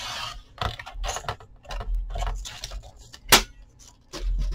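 A sliding paper trimmer being handled and moved off the cutting mat: a run of light clicks and knocks, with one sharp click about three seconds in.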